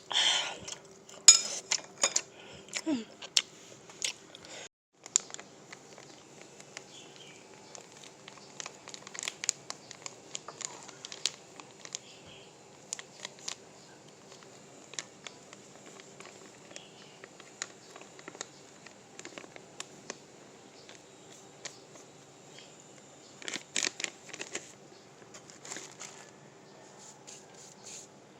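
Home-kitchen handling sounds: scattered light clicks and knocks of utensils and dishes, busiest in the first few seconds and again about 24 seconds in, over a faint steady hum.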